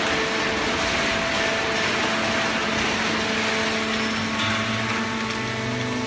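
Fully automatic horizontal hydraulic baler for waste cardboard running: a steady machine noise with several steady hums. A deeper hum joins about four and a half seconds in.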